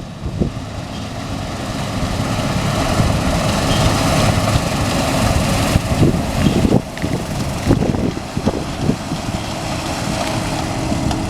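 Diesel harvest machinery running steadily in a wheat field, a broad mechanical rumble and hiss, with wind gusting on the microphone.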